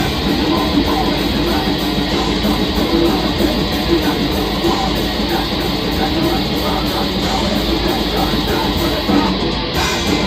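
Black metal band playing live: dense, loud distorted electric guitars over drums and bass.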